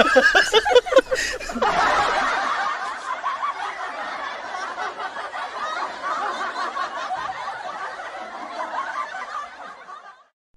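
Laughter: a man laughing heartily at first, then many voices laughing together that slowly fade away and stop just before the end.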